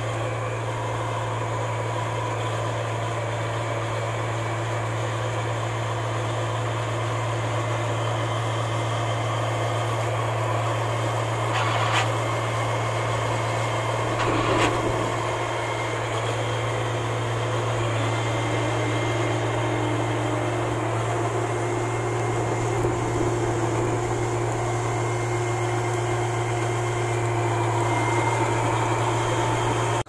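Rice combine harvester on crawler tracks running: a steady diesel engine drone with machinery hum as it drives slowly, with a couple of brief clanks about halfway through.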